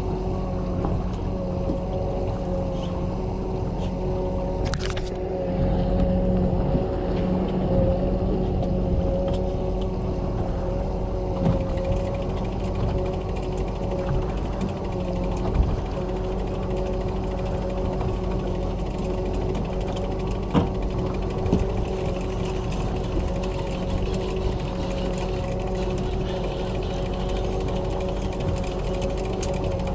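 Boat motor running steadily at trolling speed, with a few sharp clicks and knocks from the fishing gear.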